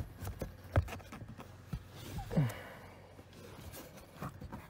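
Faint clicks and taps of fingers handling a plastic trim screw against a car's interior side trim panel, with a short falling sigh about halfway through.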